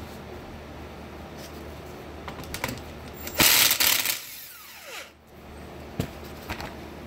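Cordless impact wrench hammering for under a second about halfway through as it breaks loose one of the outer caps on a John Deere hydraulic pump, followed by a falling whine as its motor spins down. Two sharp knocks come near the end.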